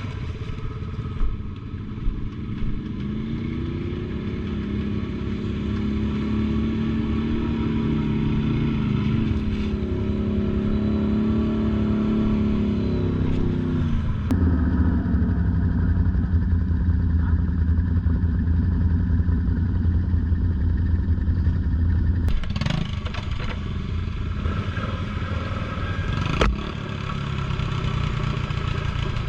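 An ATV engine running while riding. Its pitch rises about three seconds in, holds, then drops sharply about halfway through as it slows, with a couple of sharp knocks later on.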